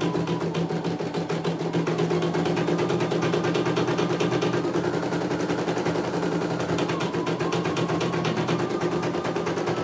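CNY E900 portable computerised embroidery machine stitching a design: a fast, even rattle of needle strokes over the steady hum of its motor.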